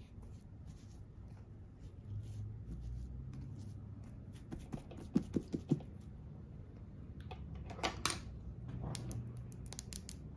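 Light taps and clicks of makeup items and tools being handled: a quick run of about five taps a little past the middle, a short scratchy rasp about eight seconds in, then a few more clicks near the end.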